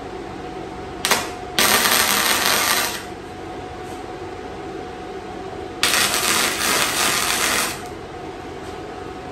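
Wire-feed welder arc crackling through two tack welds, the first about a second and a half long and the second about two seconds, with a brief blip of arc just before the first. A steady hum runs underneath between the welds.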